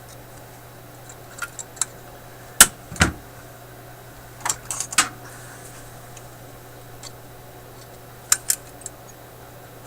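Sharp metallic clicks and snaps of small hand tools, such as wire cutters and pliers, on radio capacitor leads. They come in scattered clusters, the loudest pair about two and a half and three seconds in. A steady low hum runs underneath.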